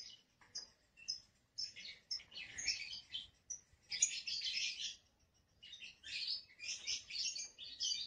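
Lovebirds chattering: a few short high chirps, then several stretches of fast, rattling chatter about a second long, with a brief pause about five seconds in.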